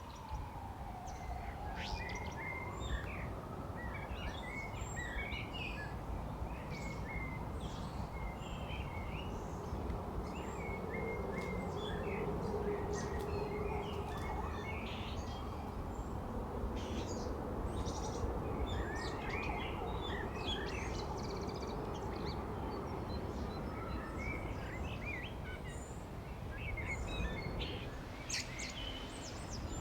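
A chorus of many small birds chirping and calling in spring, short quick calls overlapping throughout, over a steady low background rumble.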